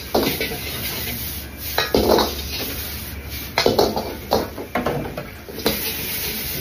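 Metal ladle scraping and clanging against a wok as fried rice is stirred and tossed, in irregular strikes about every second or two, over a steady low rumble.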